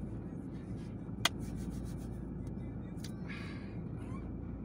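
Steady low rumble inside a car cabin, with one sharp click about a second in and a brief rustle a couple of seconds later.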